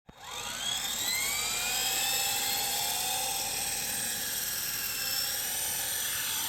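Small toy remote-control helicopter's electric motors and rotors spinning up with a rising whine in the first second, then running at a steady high whine.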